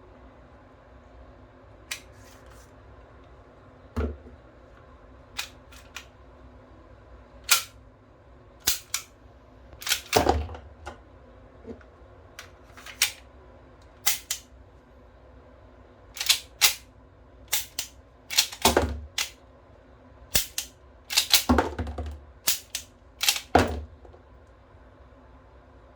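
Toy Beretta M9 replica pistol clicking and snapping as it is worked: about twenty sharp clicks at irregular intervals, some single and some in quick pairs or clusters, the loudest few with a dull thump.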